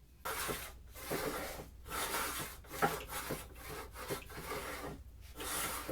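A homemade wooden grooving plane pushed along a board in repeated strokes, about one a second, each a rasping shave of wood.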